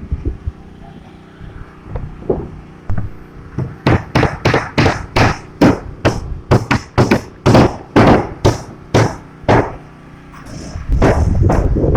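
A rapid run of sharp blows, about three a second for some six seconds, typical of hammering. A steady rumbling noise starts near the end.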